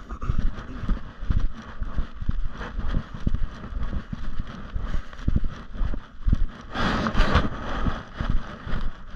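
Walking footsteps on a woodland trail, about two a second, heard as dull thuds with handling and rubbing noise from the handheld camera. A louder rustle comes about seven seconds in.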